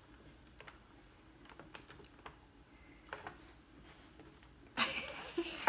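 Faint scattered clicks and taps of small plastic game pieces being handled, then a louder burst of noise near the end.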